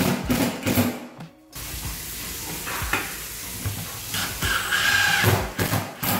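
Cordless impact driver driving a screw down through a tub filler's floor flange: a steady buzzing rattle starts about a second and a half in, grows louder toward the end, and stops just after six seconds.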